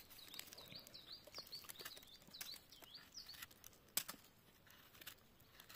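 A small bird singing faintly, a quick run of repeated high notes at about four a second, for the first three seconds or so. A small knife scraping a porcini's stem makes a few soft scrapes and one sharp click about four seconds in.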